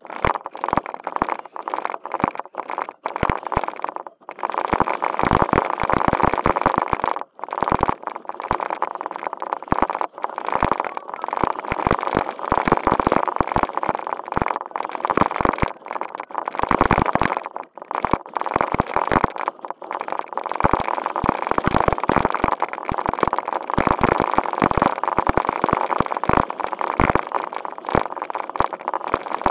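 JJRC Q76 RC car driving, heard from a camera riding on it inside a plastic bag: a dense rushing, crackling noise with a faint steady whine, cutting out for a moment a few times.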